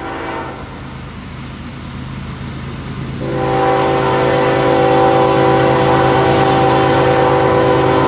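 Norfolk Southern GE ES44AC freight locomotive sounding its multi-chime air horn for a grade crossing: a blast about a second long at the start, then a louder long blast from about three seconds in. A steady low diesel rumble runs underneath as the train approaches.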